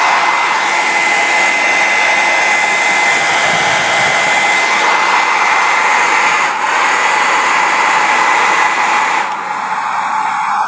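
Oreva 1200-watt handheld hair dryer running on its third and highest speed setting: a steady rush of air with a thin high whine. The sound dips briefly about six and a half seconds in and drops a little near the end.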